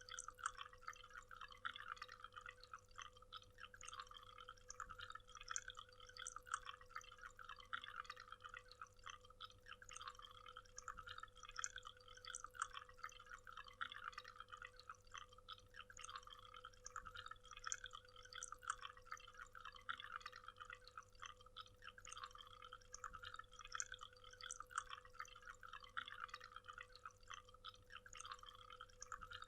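Small waterfall, a faint continuous patter of trickling water and many small splashes and drips, over a faint steady hum.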